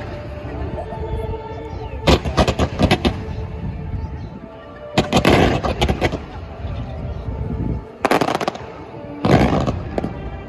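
Fireworks going off in clusters of rapid bangs and crackles, four volleys a few seconds apart, over steady background music.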